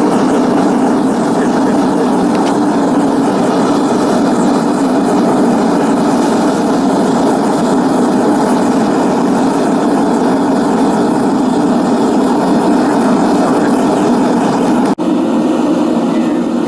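Forge running with a loud, steady rushing noise and no hammer blows, broken by a momentary dropout near the end.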